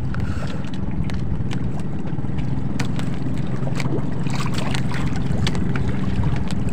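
Small engine of a motorized outrigger boat running at a steady drone, with wind on the microphone and scattered short clicks.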